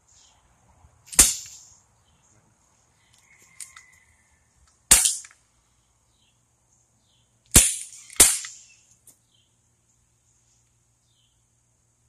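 Four sharp pops from Umarex CO2 BB pistols being fired, spaced a few seconds apart; the last two come about half a second apart.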